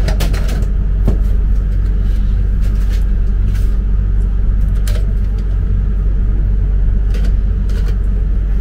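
A steady low rumble with a hum to it, with a few faint clicks and rustles from a cardboard fill-valve package being handled.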